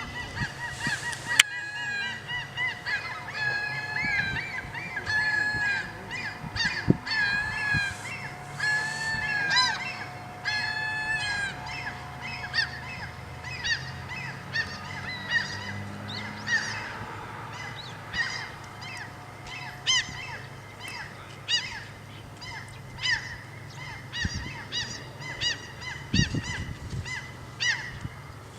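A flock of birds calling over and over with harsh, honking calls that overlap. The calls are thick in the first half and thin out into shorter, separate calls later.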